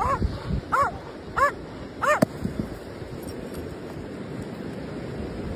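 A dog yipping: four short, high yelps, each rising and falling in pitch, in the first two seconds, then a steady background rush.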